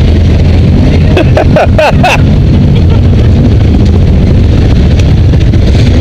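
ATV and side-by-side engines running at low speed close to the microphone: a loud, steady low rumble. A few short voices cut in about one to two seconds in.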